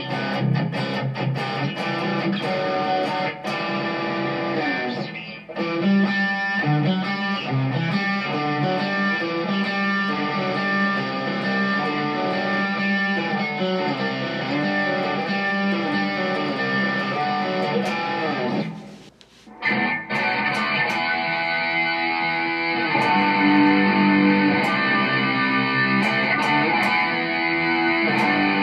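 Electric guitar, a Squier, played through presets of an M-VAVE MK-300 multi-effects unit, picking notes and chords. The sound drops out briefly about two-thirds of the way through and comes back with a different, brighter preset tone.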